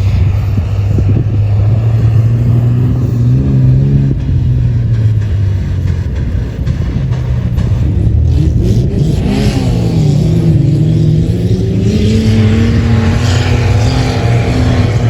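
A 4x4's engine running under load with a strong low drone; about nine seconds in its pitch rises and falls, then climbs steadily toward the end.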